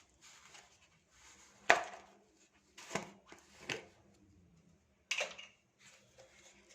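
Kitchen clatter: four sharp knocks and clacks of kitchen utensils, the loudest a little under two seconds in.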